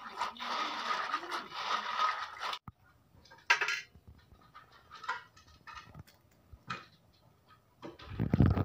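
Snails swished and rubbed by hand in a steel basin of water, a wet rattling that stops suddenly. Then a few separate knocks of a knife chopping snails on a concrete floor, with louder low thuds starting near the end.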